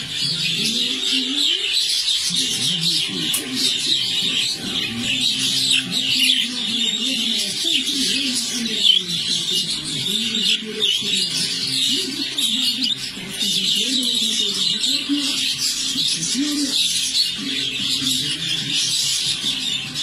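A flock of English budgerigars chattering and warbling without pause, a dense stream of rapid twittering notes, with a lower, wavering pitched sound running underneath.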